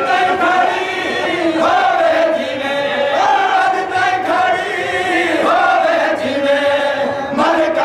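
A crowd of men chanting a noha, a Shia mourning lament, together in long, wavering phrases.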